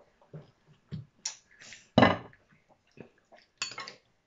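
Close-up eating sounds of moose meat being picked and eaten off the bone: scattered faint wet mouth and finger noises, with a louder sudden thump about two seconds in.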